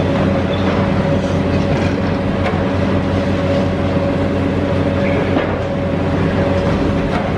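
Steady diesel engine drone and high hydraulic whine of a Hitachi Zaxis high-reach demolition excavator at work, with a few faint knocks of falling debris.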